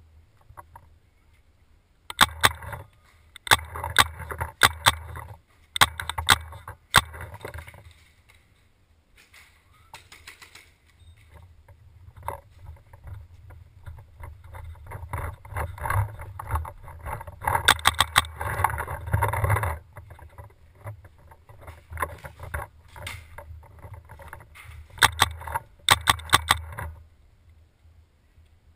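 Paintball markers firing in several bursts of rapid sharp pops, over a steady low rumble.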